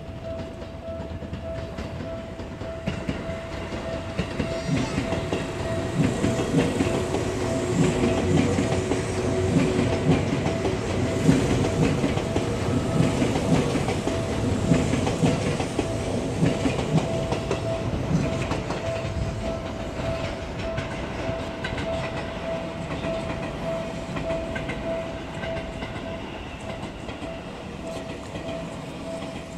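Seibu 2000 series electric train passing over the level crossing, its wheels clacking on the rail joints; the rumble swells, holds for several seconds and fades. Under it the level-crossing warning bell rings continuously in a steady, evenly pulsing tone.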